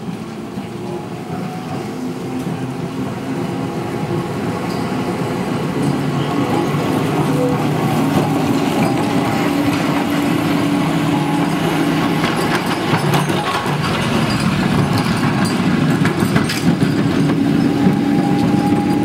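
Vintage double-deck electric tram running along its rails past the listener: a steady motor hum with wheel and rail noise and scattered clicks. It grows louder over the first several seconds as the tram draws near.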